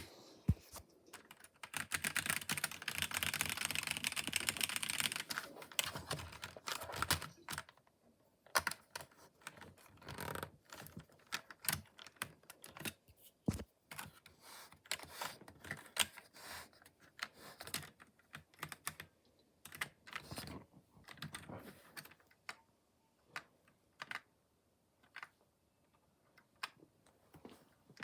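Magegee MK-Box mechanical keyboard with red (linear) switches being typed on. A fast, dense run of keystrokes for the first several seconds, then slower, scattered key presses that thin out toward the end.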